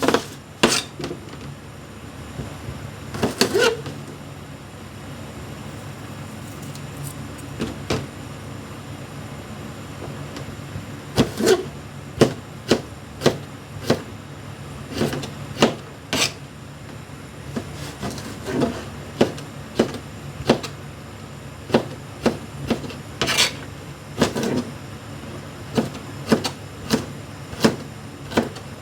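Kitchen prep: irregular sharp knocks and clicks of utensils or a knife on a hard surface, a few at first, then coming about once or twice a second from about eleven seconds in, over a steady low hum.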